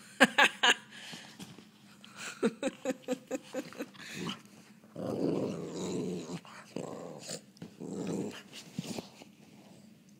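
Dog play-growling while wrestling: a few sharp knocks at the start, a quick run of short growls, then three longer rough growls.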